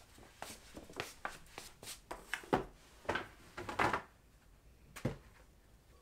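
Rustling and soft knocks of a cardboard parcel and paper shopping bag being carried and handled: a run of irregular, quiet rustles and taps that dies away about five seconds in.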